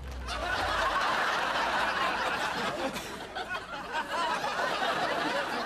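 A studio audience laughing together, a steady wash of many voices.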